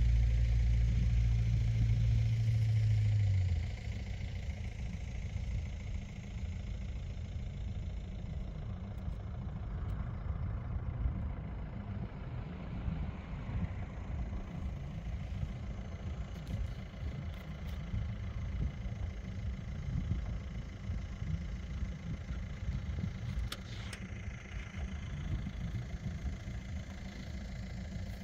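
Wind buffeting the phone's microphone, a ragged low rumble that rises and falls, heaviest for the first few seconds and then dropping to a steadier gusting.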